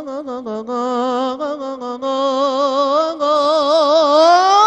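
A male munshid singing solo in Egyptian religious inshad style: a long melismatic run of short, fast-wavering ornamented phrases that settles into one held, wavering note, its pitch climbing steadily near the end.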